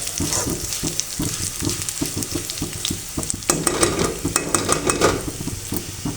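Food sizzling as it fries in hot ghee in a pan, stirred with a spoon in a steady rhythm, with sharp clinks of the spoon against the pan about halfway through.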